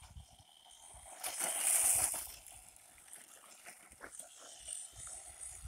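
Cheerwing 1:16 electric RC short-course truck driving over rough ground: scattered light clicks and knocks, with a loud hissing rush of tyres and thrown dirt for about a second, starting just over a second in.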